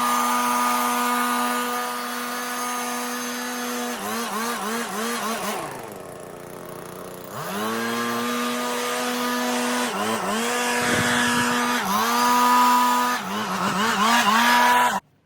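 Stihl chainsaw engine running at high revs. Its pitch sags and climbs back several times, as when the chain bogs in the wood and picks up again. Around the middle it drops off briefly before revving up again, and it cuts off abruptly near the end.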